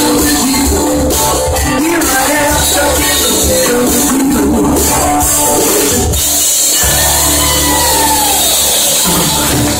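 Live rock band playing soft rock: electric and acoustic guitars, bass guitar and drums, loud and steady, recorded from the crowd in front of the stage.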